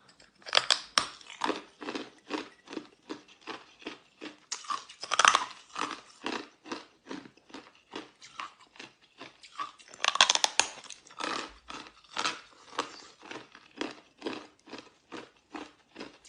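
Ice being bitten and chewed close to the microphone: a steady run of crunches, about two to three a second, with bigger bites about five seconds in and again around ten seconds.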